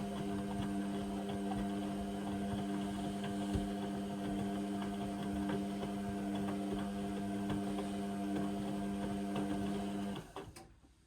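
Indesit washing machine's drum motor turning the drum during the main wash, a steady hum that stops abruptly about ten seconds in, followed by a couple of sharp clicks.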